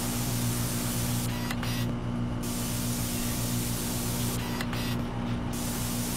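Steady machine hum with a hissing cutting noise, set to an animation of a blade cutting a spiral groove into a turning cylinder. The hiss drops out twice for about a second, with a few light clicks each time, while the hum runs on.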